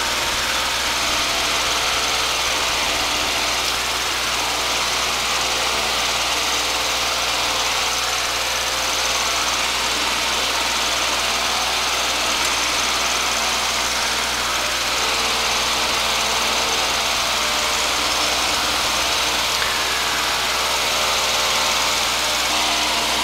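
A Piper PA-22/20 Pacer's 135-hp Lycoming four-cylinder engine and propeller run steadily at full takeoff power during the climb-out just after lift-off, heard inside the cabin.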